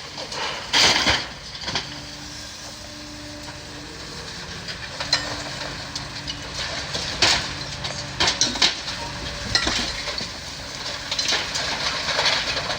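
Demolition excavator tearing down a building: a steady engine hum under irregular crashes and clattering of falling debris, loudest about a second in and again between about seven and nine seconds.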